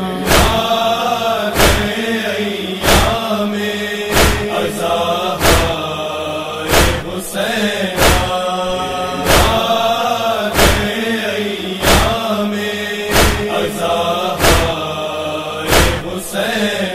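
A voice chanting a Muharram nauha (lament for Husain) over a steady low drone, with a sharp beat about every 1.3 seconds.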